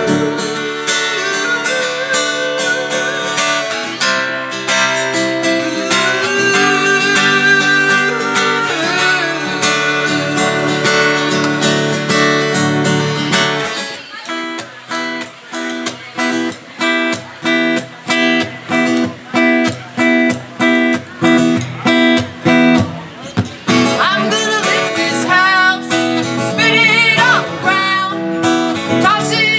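Amplified guitar playing an instrumental break in a live band set: held, ringing chords for the first half, then choppy strums in a steady rhythm about twice a second from about halfway.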